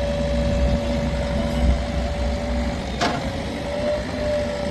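Heavy diesel engine running steadily, with a steady whine over its rumble and one sharp knock about three seconds in.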